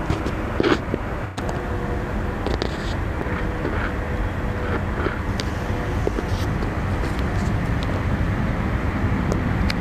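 Steady rumble of a train approaching the station, growing slightly louder, with a couple of sharp clicks about a second in.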